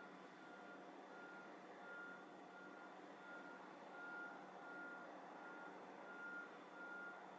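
Faint electronic beeping repeating evenly, about three short beeps every two seconds, over a low steady background hiss.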